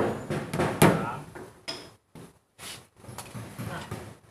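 Sharp knocks with a short ringing tail, two in the first second, then fainter scattered knocks and bumps.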